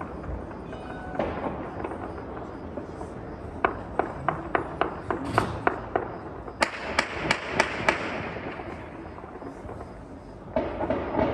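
Celebratory gunfire: a run of about nine evenly spaced shots starting around three and a half seconds in, then a louder burst of about six shots near seven seconds, each shot echoing. Near the end a dense, continuous crackle of many shots at once begins.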